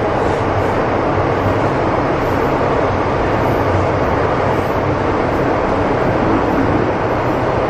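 MTR M-train electric multiple unit running through the underground tunnel, heard from inside the car with the doors closed: a steady rumble of wheels and running gear with a low hum underneath.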